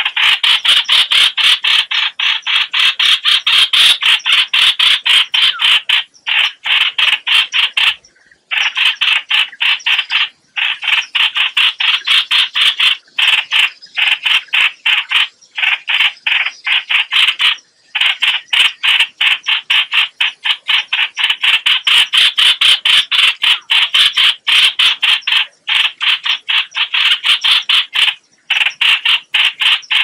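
Chào chảo bulbul distress calls used as a trapping lure: rapid chattering notes, about five a second, in long runs broken by short pauses every few seconds.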